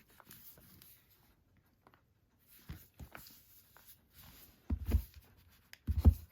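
Cardboard collector's box being handled: faint rustling and small clicks, then two dull thumps near the end.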